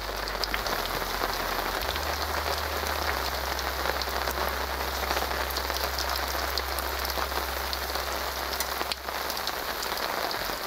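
Steady rain falling, a dense even patter of many small drops ticking.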